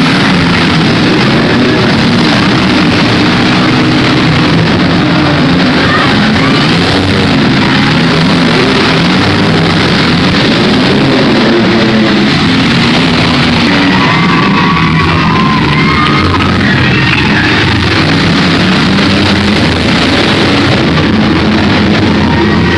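Loud rock music, mixed with the running engines of the minivans in a demolition derby.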